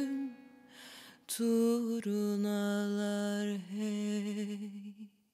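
A woman's solo voice singing the closing phrase of a Turkish türkü in long held notes, with a quick breath about a second in. The last note dies away near the end.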